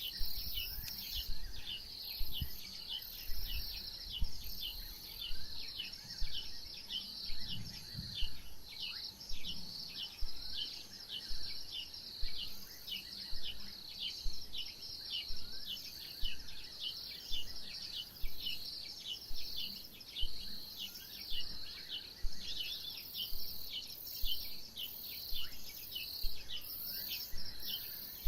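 Outdoor bush ambience: a steady run of short, high, falling chirps, about two or three a second, over a constant high insect buzz, with occasional fainter rising calls and a few soft low thumps.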